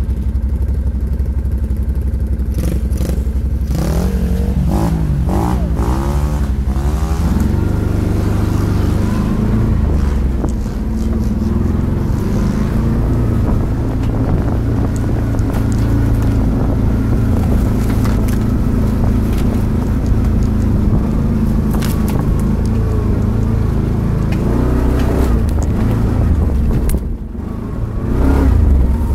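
ATV engine running under way on a rough forest track, its pitch rising and falling with the throttle, with occasional knocks and rattles from the bumps. Near the end it eases off briefly, then picks up again.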